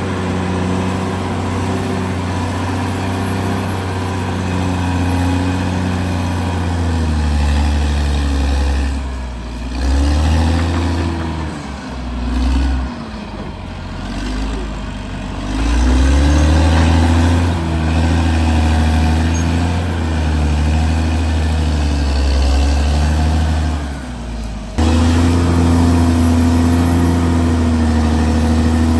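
Caterpillar D6R XL bulldozer's diesel engine working under load. Its pitch dips and recovers several times partway through, then it runs steadily, with a sudden jump in loudness near the end.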